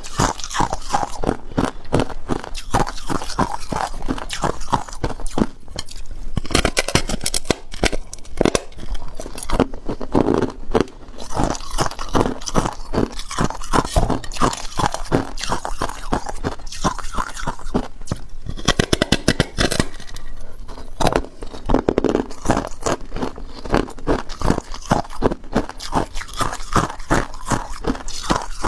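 Close-up crunching of hard crushed ice being bitten and chewed: rapid, loud crunches several times a second, with brief lulls between mouthfuls.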